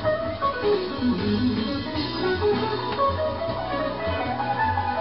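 Background music led by guitar, over a steady bass line.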